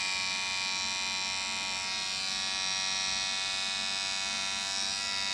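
Electric hair trimmer buzzing steadily as it is run along the nape of the neck, clearing stray hairs from the neckline of a short haircut.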